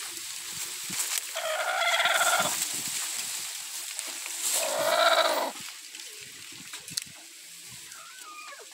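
Two drawn-out calls from a hen, each about a second long and some three seconds apart.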